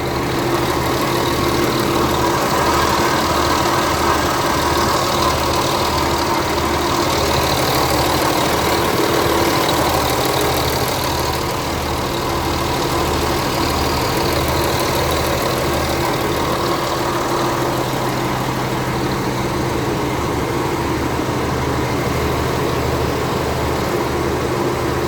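Diesel engine of a K-700 tractor, a freshly overhauled MAN engine, idling steadily with a slow, regular low throb.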